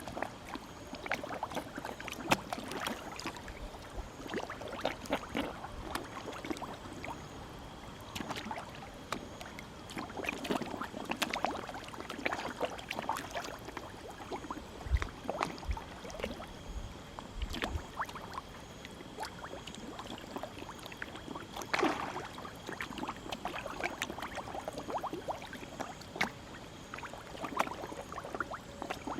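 A crowd of koi feeding on pellets at the pond surface, making a dense, irregular patter of small splashes and slurping smacks as they gulp the food.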